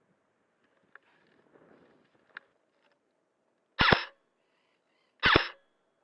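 Airsoft gun firing two single shots, about a second and a half apart, each a short sharp crack; a couple of faint clicks come before them.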